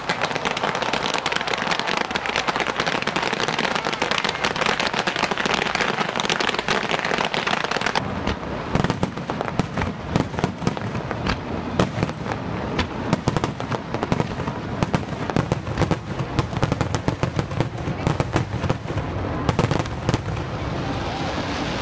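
Fireworks display: dense crackling and hissing for about the first eight seconds, then a rapid run of sharp bangs as aerial shells burst, several a second.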